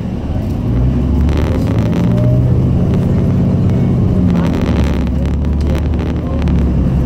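MTA city bus engine running under load, its pitch rising about a second in and dropping again past the middle, with two short spells of hiss and rattle.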